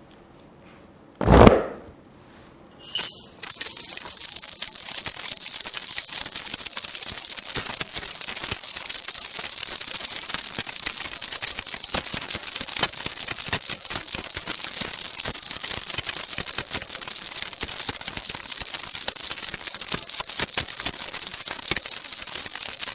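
A shaman's cluster of ritual brass bells (mugu bangul) shaken hard and without pause, a dense, bright jingling, rung to call down the spirits before a fortune reading. A single thump comes about a second in, just before the ringing starts.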